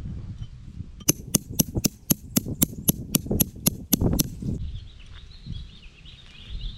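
Hammer striking a big steel bolt in quick, even blows, about thirteen in three seconds, driving it into hard dirt, with sharp metal-on-metal clinks. The blows stop about two-thirds of the way through.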